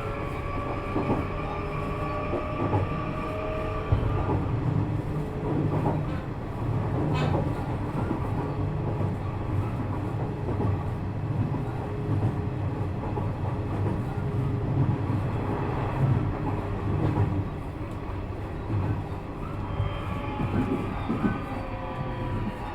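Running noise heard from inside a Nishitetsu 3000 series electric motor car between stations: a steady rumble of wheels on rail with occasional sharp clicks over rail joints, and a traction motor whine that shifts in pitch near the start and again near the end.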